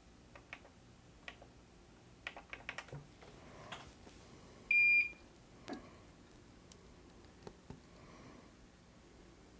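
A single short, high-pitched electronic beep of about half a second near the middle, over scattered light clicks and taps of small tools.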